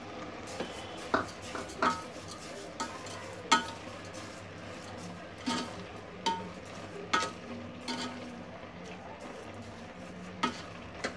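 A spoon stirring a wet mix of grated carrots, milk and sugar cooking in a steel pot, knocking against the pot's side about nine times at irregular intervals.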